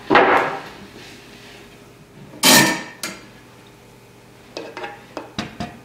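Plywood cabinet panels handled on a stone countertop: a scrape as a panel is lifted, a louder scrape and knock about halfway through, then a string of short clicks and knocks near the end as a bar clamp is fitted over the box.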